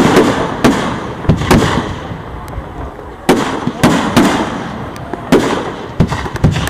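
Display fireworks going off: about a dozen sharp bangs at irregular intervals, some in quick clusters, each trailing off in a rumbling echo.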